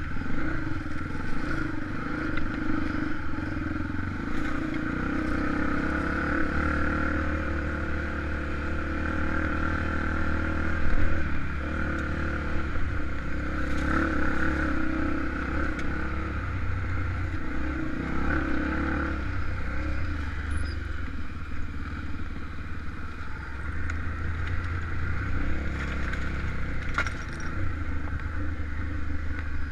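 Honda XR250 Tornado single-cylinder four-stroke engine running while being ridden off-road, the revs rising and falling, with a few short sharp knocks.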